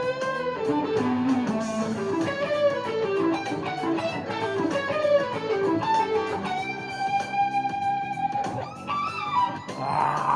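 Electric guitar playing a lead line: several quick runs of notes stepping downward, then one long held note, and a bent note near the end.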